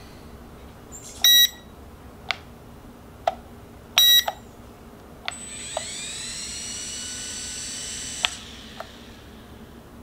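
Two short electronic beeps from a Syma S200 toy RC helicopter set, a few seconds apart, among light clicks of the remote's controls. About five seconds in, the helicopter's small electric rotor motor spins up with a whine that rises and then holds steady for about three seconds before cutting off.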